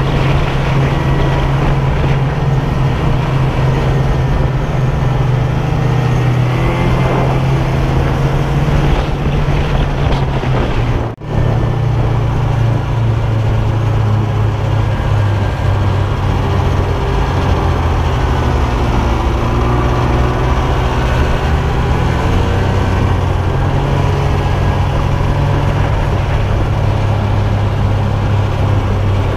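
Snowmobile engine running steadily under way, heard from a camera mounted on the sled. Its pitch shifts a little with the throttle, and the sound drops out for a split second about eleven seconds in.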